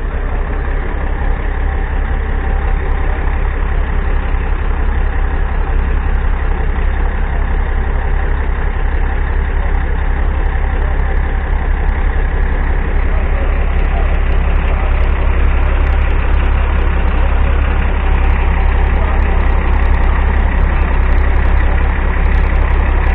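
Heavy diesel semi-truck engine idling steadily, a deep rumble that does not change pitch.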